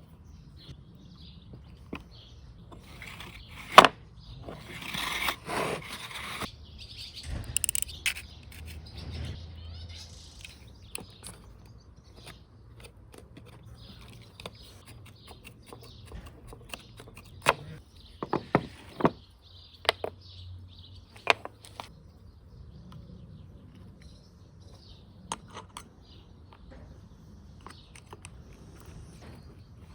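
Scattered sharp knocks and clicks of small engine parts and tools being handled during repair work, the loudest about four seconds in and a cluster between about 17 and 21 seconds in, with birds chirping in the background.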